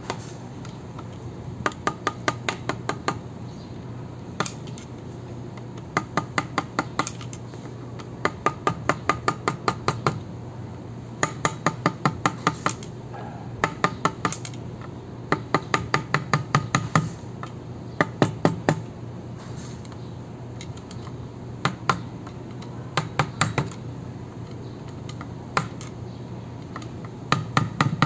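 Socket ratchet wrench clicking in runs of rapid metallic clicks with short pauses between, as it tightens the bolts that hold the brass pump head of a pressure washer. A steady low hum runs underneath.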